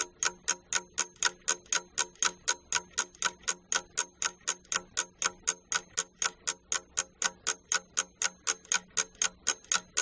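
Ticking-clock sound effect, evenly paced at about four ticks a second, marking the thinking time for a quiz question; it stops abruptly at the end.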